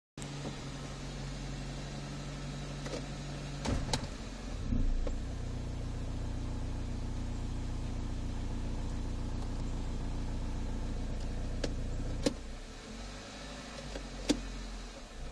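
Toyota Corolla idling in gear with the brake applied, a steady low hum that is the noise the owner was chasing. A few sharp clicks and knocks come along the way, and the hum drops away about twelve seconds in.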